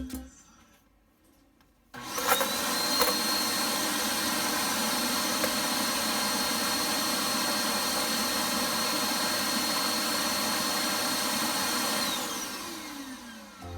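Vacuum dustbin's suction motor switching on about two seconds in and running steadily with a high whine. Near the end it spins down, its pitch falling as it switches off.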